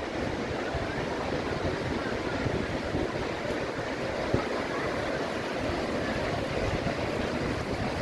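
Steady roar of rushing water from the Bad Gastein waterfall, the Gasteiner Ache falling through the town, heard from the nearby street, with some uneven wind rumble on the microphone.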